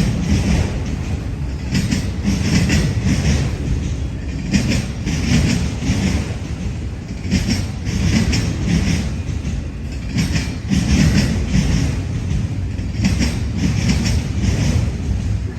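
Freight train cars rolling past with a steady low rumble, their wheels clacking over rail joints in repeated clusters of clicks.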